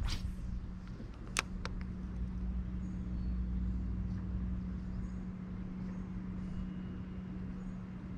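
Steady low hum of a boat motor running, with a deeper rumble that fades out about five seconds in. A sharp click about a second and a half in, then a fainter one, from the spinning rod and reel as the line is cast.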